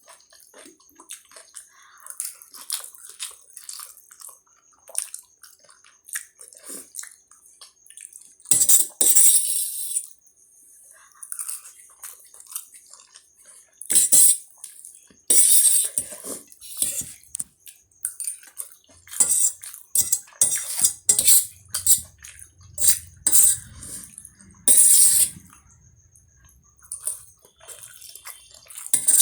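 Close-up eating sounds of spicy Maggi instant noodles: several loud wet slurps of noodles spread through the stretch, with many small chewing and mouth clicks and the clink of cutlery against a plate or bowl between them.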